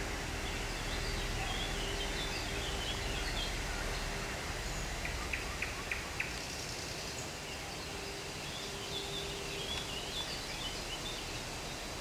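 Low steady rumble of an SU45 diesel locomotive moving slowly through a station yard, easing off a little partway through, with small birds chirping in two spells and four quick clicks about five to six seconds in.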